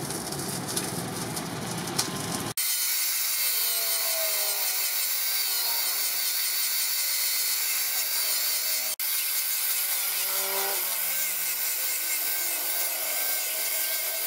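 About two and a half seconds of background noise, then an angle grinder with a sanding disc on a backing pad grinding the steel head of a claw hammer. It makes a steady high whine over a hiss of abrasive on metal, with a brief break about nine seconds in.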